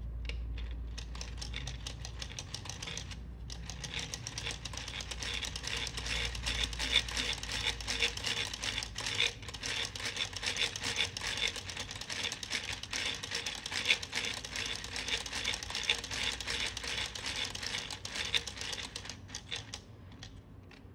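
Lego Technic 858 Auto Engines model, a three-piston plastic engine, turned by hand: its pistons, gears and fan run with a rapid plastic clicking and rattling, broken by a short pause about three seconds in.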